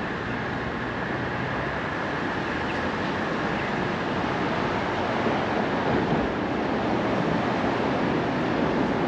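Steady rushing noise of city street traffic, growing a little louder about halfway through.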